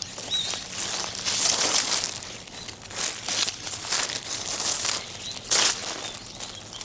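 Dry fallen leaves crunching and rustling underfoot as people walk through them, in irregular crackling bursts; the loudest comes about five and a half seconds in.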